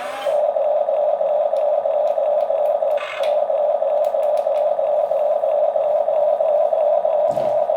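Steady whine of a small electric motor in a remote-control toy, with a few light clicks and a short rasp about three seconds in.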